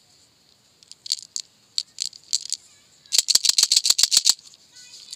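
Jelly beans rattling inside a clear plastic candy tube handled by hand: a few scattered rattles, then about a second and a half of fast shaking, a dozen or so quick rattles.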